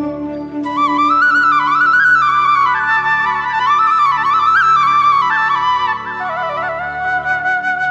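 Background music: a flute playing a winding melody of quick ornamented runs that rise and fall, over a steady held drone note.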